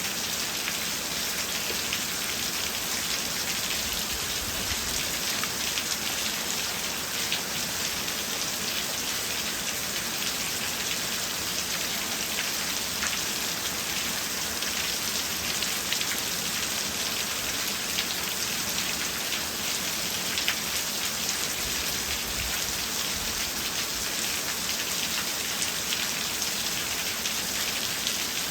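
Steady rain falling, a continuous hiss with scattered drop ticks.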